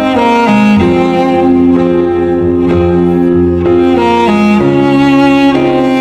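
Background music of bowed string instruments, cello and violin, playing sustained notes that change every second or so.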